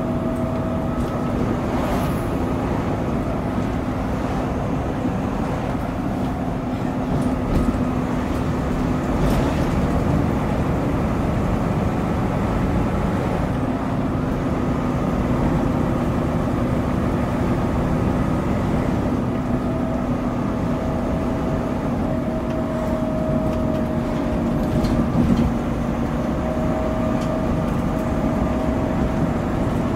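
Double-decker bus under way, heard from the upper deck: a steady engine drone with road rumble, a few short rattles and knocks, and a faint high whine that fades and returns in the second half, which is the bus's slight cooling-fan noise.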